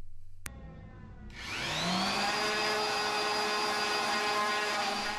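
Electric random orbital sander switched on with a click, winding up to full speed and then running steadily on cedar. It is taking off leftover paper template and spray adhesive.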